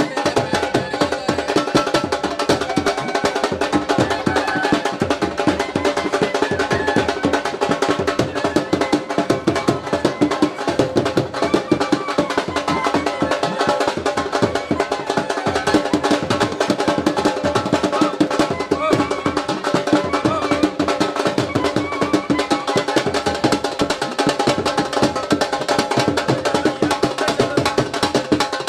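Drums played in a fast, steady rhythm, with music under them.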